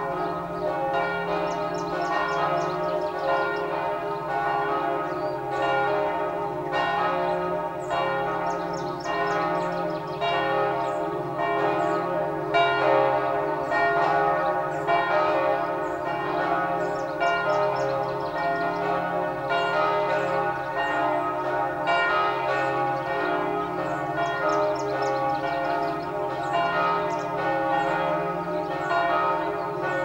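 Several church bells ringing together in a continuous peal, their strokes overlapping without a break.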